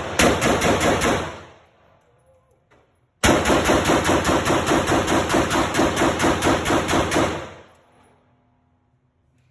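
AK-pattern rifle fired rapidly from a steel magazine: a short string of shots, a pause of about two seconds, then a longer string of about five shots a second, with no stoppage. Each string ends in an echoing tail.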